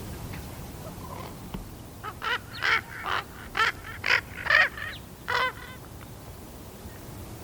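Juvenile raven, about thirteen and a half weeks old, giving a run of about eight short calls with a wavering pitch, starting about two seconds in and ending about five and a half seconds in. It is a young bird still learning how to use its voice box.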